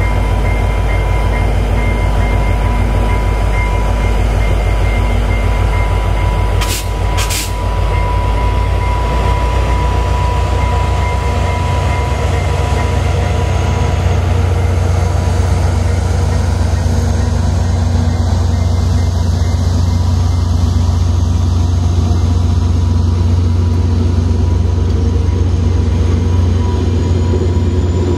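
VIA Rail passenger train passing close by, its EMD F40PH-2 diesel locomotive followed by stainless-steel passenger cars, making a steady, loud rumble with a constant tone. Two sharp clicks come about seven seconds in.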